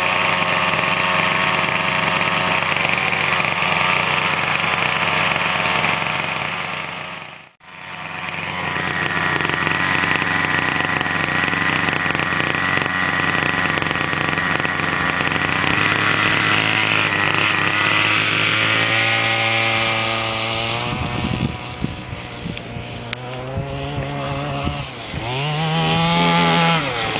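Small petrol two-stroke engine of a Mutilator 6 RC buggy running, freshly started. The sound drops out briefly about seven seconds in and comes back. In the last few seconds the engine revs up and down repeatedly with the throttle.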